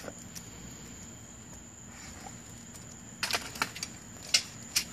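Low background hiss with a faint steady high-pitched tone, then a handful of sharp clicks and taps starting about three seconds in.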